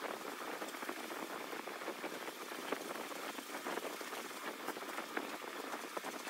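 Cloth rubbing antique wax onto a wooden baton as it spins back and forth on a spring pole lathe: a steady crackling hiss with many small irregular clicks.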